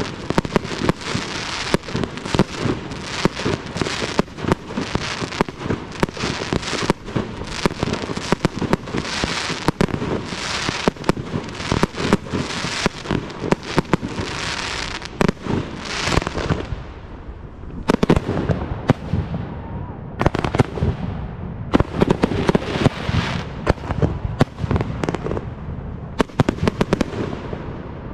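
Aerial fireworks display: a rapid, unbroken string of shell launches, bangs and crackling bursts. About two-thirds of the way through, the high crackle thins and deeper booms take over.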